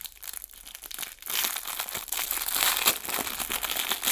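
Plastic packaging crinkling and rustling as it is handled, quieter with a few light clicks at first, then louder and continuous from about a second and a half in.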